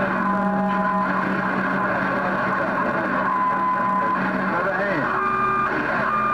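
CB radio receiving long-distance skip on a crowded channel: garbled, overlapping voices under static, with several steady whistles that come and go and shift in pitch.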